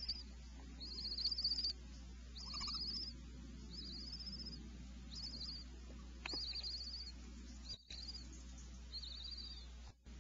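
Barn owl chick's high, quavering begging call, repeated about once a second over a steady low electrical hum from the nest camera; the sound drops out briefly twice near the end.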